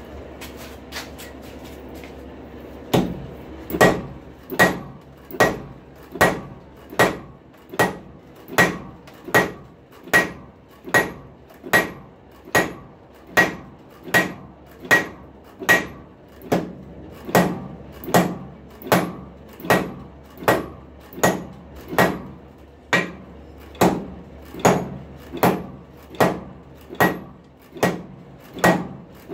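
Hammer blows forging a hot rail spike: about thirty evenly paced strikes, a little more than one a second, each ringing briefly, after a few lighter taps at the start.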